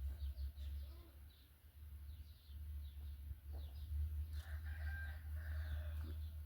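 Small birds chirping in short repeated calls, with one drawn-out animal call about a second and a half long past the middle, over a steady low rumble.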